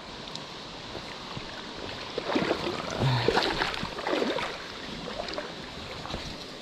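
Mountain stream running steadily, with a stretch of sloshing and splashing about two to four and a half seconds in, as from wading in waders through the water.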